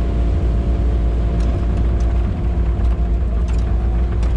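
Kubota KX080 excavator's diesel engine running steadily, a constant low rumble with a steady hum.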